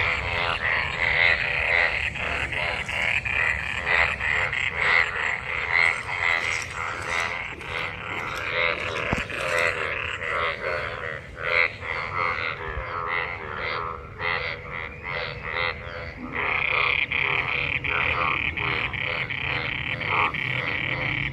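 Breeding chorus of many frogs calling after monsoon rain: dense, overlapping rapid croaks under a steady high-pitched trilling, which grows stronger again about two-thirds of the way through.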